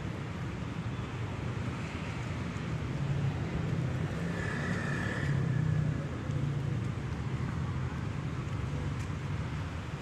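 Road traffic: a steady rumble of car engines and tyres that swells a little midway. A brief high tone sounds about four and a half seconds in.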